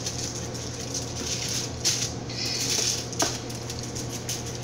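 Plastic seasoning shaker shaken over fish on foil, the granules rattling and pattering out in several short bursts. A sharp click comes about three seconds in, over a steady low hum.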